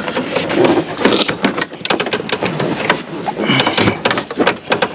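Irregular clicks, knocks and rattles of plastic dashboard trim being handled and pried while reaching in for an ambient light sensor, with a short squeak a little after halfway.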